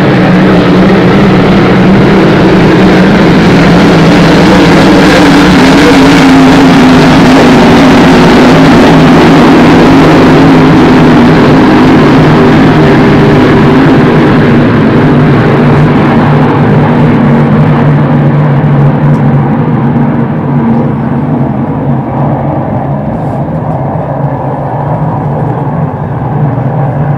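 A pack of Grand Prix class racing hydroplanes running flat out, a loud, steady engine drone. It is loudest through the first half and fades somewhat in the second half as the boats draw away.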